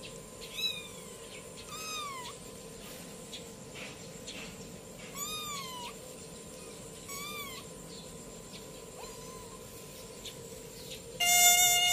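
Young calico kitten meowing about four times, each meow short, high and falling in pitch. Near the end a loud steady mosquito-like buzz starts.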